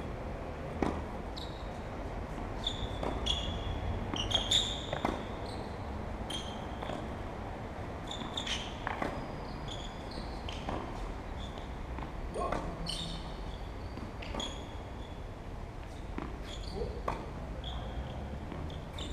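Tennis ball struck by rackets and bouncing on the court during a rally: sharp hits and bounces at uneven intervals, with short high squeaks between them.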